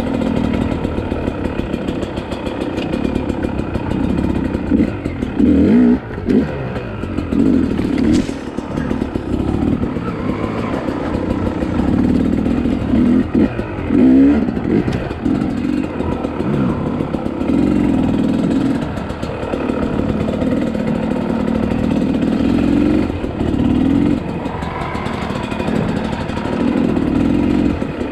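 Two-stroke dirt bike engine revving up and falling back over and over as the throttle is worked on a trail ride.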